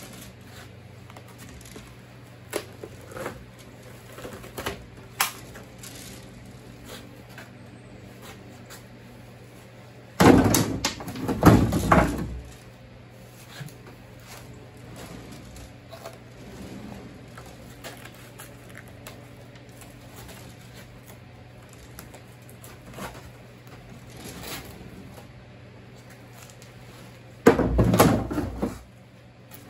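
Rigid fiberglass mold-shell halves pulled off a latex mold and handled on a wooden workbench. There are a few light clicks early, then two short spells of loud knocking and scraping, one about ten seconds in and one near the end, over a low steady hum.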